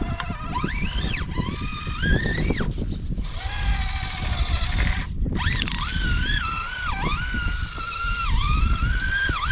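Small electric motor of a 1/24-scale RC rock crawler whining as it drives, its pitch rising and falling with the throttle, over a rough rumbling clatter. The whine cuts out briefly about three seconds in and again about five seconds in.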